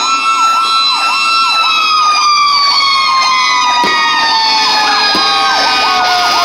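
Fire truck sirens: one siren warbling fast, about three cycles a second, over a second steady siren tone that holds and then slowly falls in pitch from about a second and a half in. A sharp pop cuts through about four seconds in.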